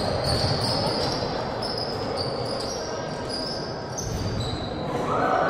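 Indoor basketball game: sneakers squeak repeatedly on the court and a basketball bounces, over a steady hall background.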